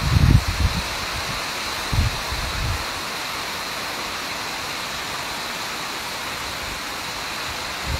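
Steady hiss of heavy rain, with low rumbles of wind buffeting the microphone in the first second and again about two seconds in.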